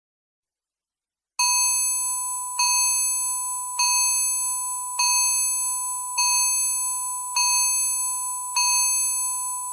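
Countdown timer alarm going off at the end of a nine-minute countdown: a bell-like chime tone, struck about once every 1.2 seconds, starting about a second and a half in.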